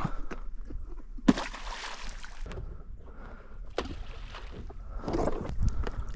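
Water sloshing and splashing in shallow marsh water, with scattered short knocks, the sharpest about a second in.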